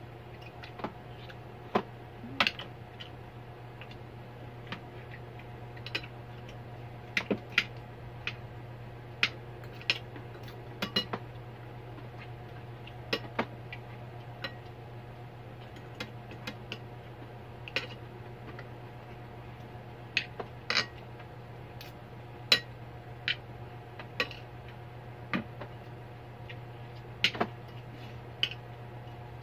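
Spoons and forks clinking and scraping on plates as two people eat, in short irregular clicks, over a steady low hum.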